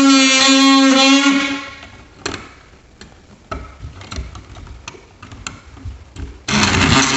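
DeWalt oscillating multi-tool running with a steady, high buzzing whine while it cuts out the back of a plastic electrical box. It stops about a second and a half in, a few light clicks and knocks follow, and it starts up again near the end.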